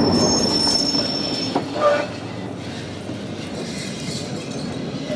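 Vintage electric tram (Adelaide F1 class car 282) running on its rails. A high, steady wheel squeal lasts for about the first second and a half over the rolling rumble, a short pitched note sounds about two seconds in, and then the running sound grows quieter.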